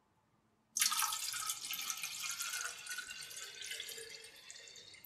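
Liquid plant-fertiliser solution poured from a five-litre bottle into a plant saucer. The pour starts suddenly about a second in and tapers off near the end.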